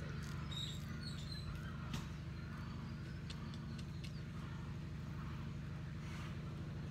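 A steady low motor hum with a few faint bird chirps over it, about half a second to a second and a half in.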